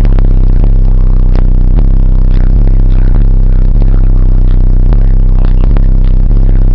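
Car audio system playing bass-heavy music very loud inside the vehicle through a Sundown Audio SA-12 subwoofer on a SAZ-1500D amplifier: sustained deep bass notes with sharp beat hits over them. The low notes load the amplifier hard enough to pull the electrical system's voltage down.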